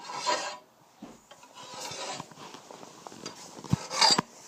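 Hand file scraping across the edge of a steel lawnmower blade in a few strokes, with a couple of sharp knocks about four seconds in.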